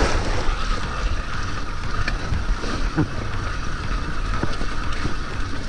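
Mountain bike riding on a wet, muddy trail: steady rumble of the tyres and bike over rough ground with wind on the microphone, and a few knocks from bumps.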